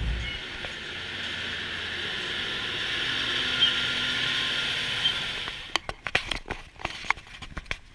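A steady hiss for about five and a half seconds, then a scatter of sharp clicks and knocks near the end.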